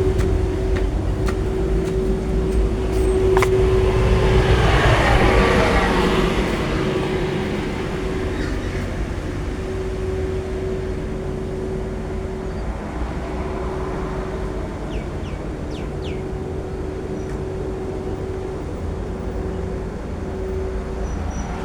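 Street sweeper running: a steady engine drone with a constant whine. A rush of louder noise swells and fades about four to six seconds in, then the machine runs on a little quieter.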